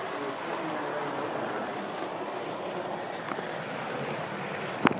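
Steady rushing, rubbing noise of a handheld camera's microphone being covered and brushed while the camera is swung around, with one sharp knock near the end.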